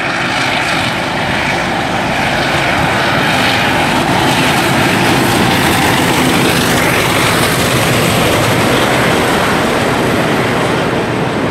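Class 66 diesel locomotive running as a light engine, its two-stroke diesel engine giving a loud, steady drone that swells to a peak about halfway through as it passes.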